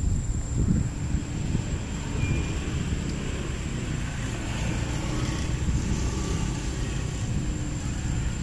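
Steady low outdoor rumble, with a thin steady high whine running through it.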